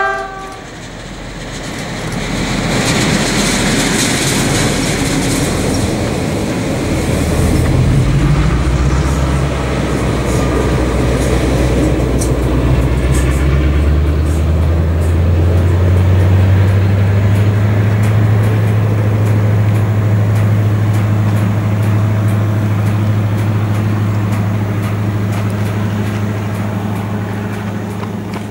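A diesel locomotive hauling a train passes close by, with wheels rumbling and clicking on the rails and a steady low engine drone. The drone grows over the first half and holds, then fades near the end as the train draws away.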